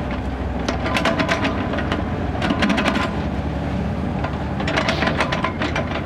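Kubota mini excavator's diesel engine running steadily, with spells of rapid clanking and rattling from the boom, bucket and swing as it works the soil.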